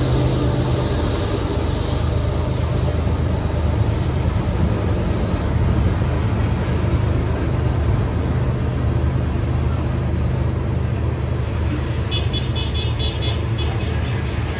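Freight train of intermodal container cars rolling past, a steady rumble and clatter of steel wheels on rail. A brief run of rapid high ticks comes about twelve seconds in.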